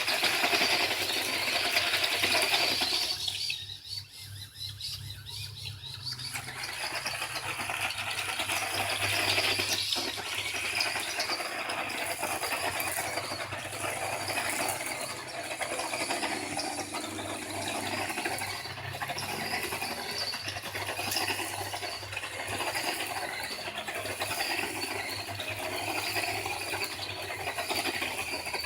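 Radio-controlled truck's electric motor and gearbox whining and grinding as it drives, easing off briefly about four seconds in, then running on.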